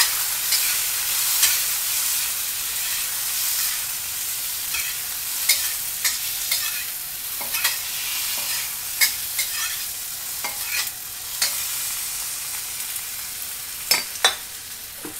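Tomato wedges and chopped onion sizzling in oil in a stainless steel wok, a steady hiss, while a metal spatula stirs them, scraping and clacking against the pan every second or two, with two sharp knocks near the end.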